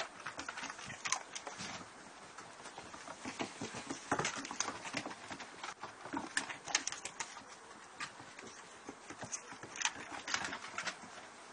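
Paws and claws of two dogs, a Basset Hound puppy among them, running on wooden decking: many quick, irregular clicks and taps.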